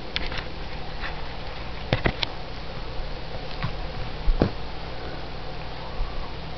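Cat eating soft canned cut green beans: scattered small wet clicks and smacks of chewing, a few close together about two seconds in and a louder one about four and a half seconds in, over a steady hiss and low hum.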